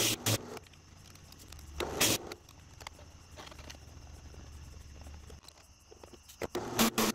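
Drill press bit cutting into steel plate and chattering in loud bursts near the start, about two seconds in and again near the end, with the motor running steadily in between. The chatter is taken for the sign of a damaged bit.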